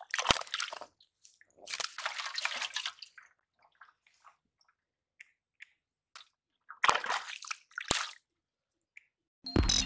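A hand groping through mud and water in a small water-filled hole: wet squelching and sloshing in three spells, with scattered drips between and a few sharp clicks. Music starts just before the end.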